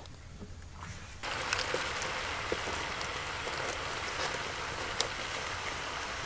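Raw duck pieces frying in a wok over a wood fire: a steady sizzling hiss with scattered crackles, starting abruptly about a second in.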